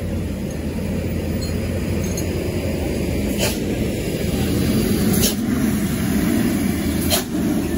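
Heavy diesel truck engines running close by, a steady low drone that grows louder in the second half as a tanker truck moves past. Three sharp clicks are spread through it.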